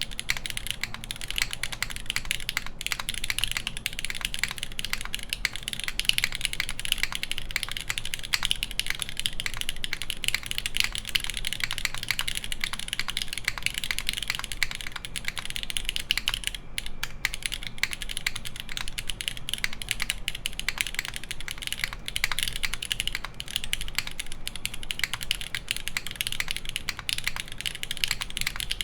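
Continuous typing on a SINGAKBD Kohaku mechanical keyboard with lubed, broken-in Cherry MX Black linear switches, a full aluminum plate and GMK keycaps. The keystrokes run densely, with one brief break about seventeen seconds in.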